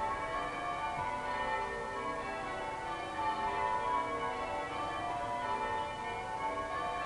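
Cathedral bells ringing, several bells struck one after another with their tones overlapping and ringing on continuously.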